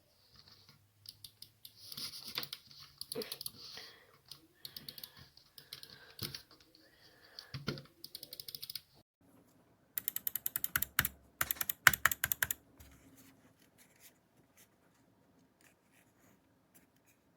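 Clicking of computer keys and mouse buttons in irregular bursts, with a dense run of fast clicks about ten seconds in, then only a few scattered clicks.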